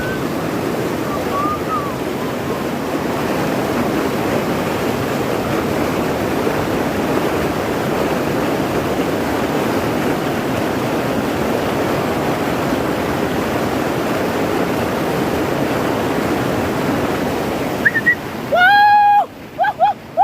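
River water rushing steadily over rocks. Near the end a loud, high-pitched call starts: one held note, then a quick string of short repeated notes.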